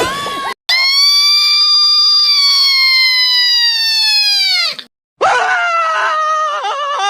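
Cartoon screaming sound effects, one after another: a long high scream that slowly falls in pitch and drops off at the end, then after a brief gap a second scream whose pitch wavers.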